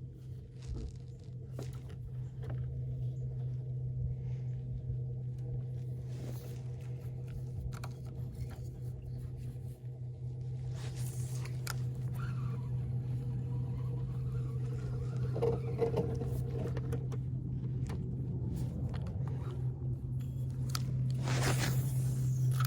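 Steady low hum of a running motor, getting gradually louder, with scattered clicks and scrapes of handling.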